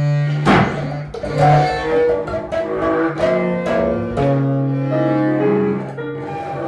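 Free-improvised music: a bowed cello holds long low notes, with sharp, irregular attacks from other instruments over it.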